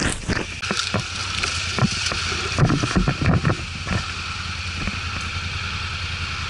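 ATV engine running steadily at low speed, with irregular knocks and thumps as the machine jolts over rough ground, several close together in the middle.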